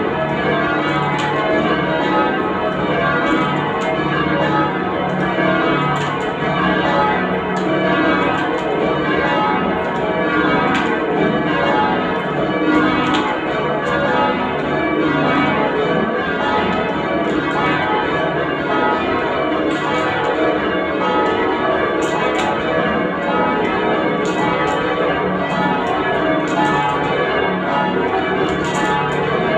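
Change ringing on a ring of ten church bells: a steady, unbroken run of bell strikes following one another in rows, their tones overlapping.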